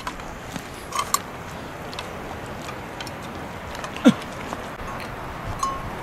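A dog eating from a metal bowl, with a couple of light clinks about a second in, over a steady outdoor hiss. One short call falling in pitch comes about four seconds in and is the loudest sound.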